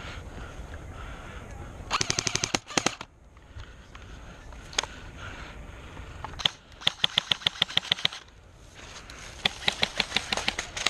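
Airsoft guns firing rapid full-auto bursts, roughly fifteen shots a second: a short burst about two seconds in, a single shot near the middle, and two longer bursts in the second half.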